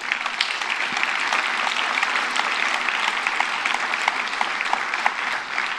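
Audience applauding: dense, steady clapping from a large seated crowd that eases off slightly near the end.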